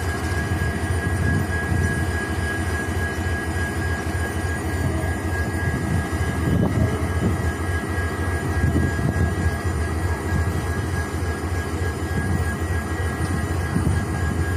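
EMD GT46MAC (WDG4) diesel-electric locomotives' two-stroke V16 diesel engines running steadily after start-up: a deep, even hum with a thin, steady high whine over it.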